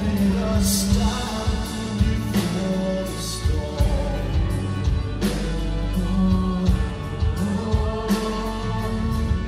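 Live progressive rock band playing, with a male lead singer singing over electric guitar, keyboards, bass and drums.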